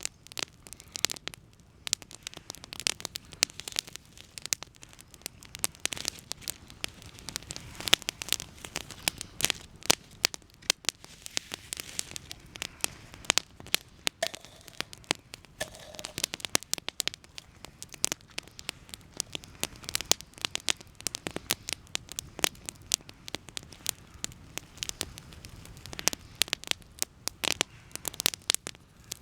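Wood campfire crackling and popping: many irregular sharp snaps over a low hiss.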